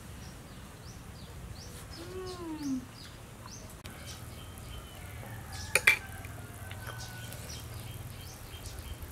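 Small birds chirping repeatedly with short high chirps over a steady low hum. Just before six seconds in comes one sharp clink, a metal spoon striking a bowl.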